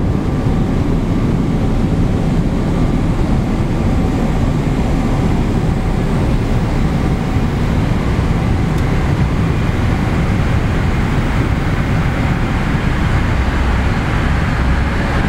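Steady cabin noise of a Boeing 777-300ER airliner in cruise flight: an even, deep rush of engine and airflow noise with a faint steady hum.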